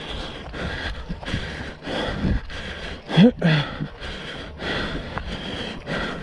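A racer's hard, rapid breathing right at the microphone, breath after breath, with a short strained voiced sound rising in pitch about three seconds in.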